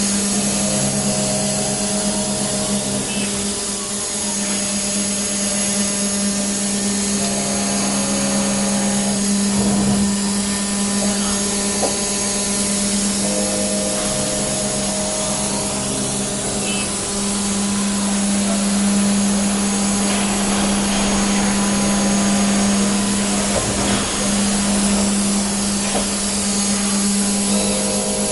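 5-axis CNC machine's spindle running with a steady high hum and hiss as it carves a block held in a vise. Shorter tones come and go every few seconds as the machine moves.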